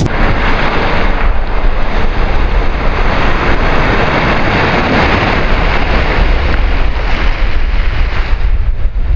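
A car driving through a wide puddle, its tyres throwing up spray, heard as a loud steady rush of water noise under heavy wind buffeting on the microphone.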